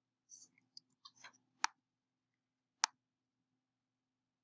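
Two sharp single computer-mouse clicks a little over a second apart, preceded by a few fainter soft clicks and rustles, over a faint steady hum.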